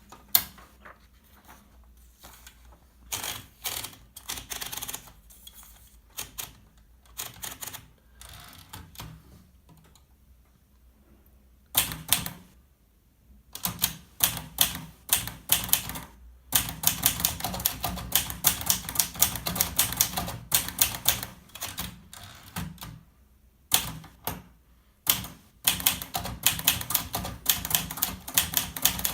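Olivetti Valentine portable typewriter being typed on. There are scattered, slow key strikes at first, then fast, steady runs of typing from a little past halfway, broken by short pauses.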